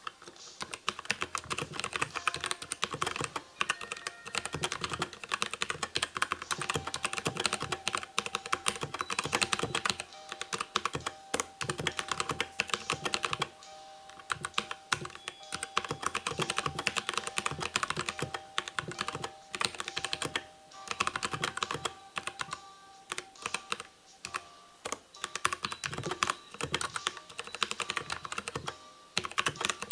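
Fast, continuous typing on a Dierya DK63 mechanical keyboard with brown tactile switches and built-in sound dampening: a dense run of key clacks with a few brief pauses.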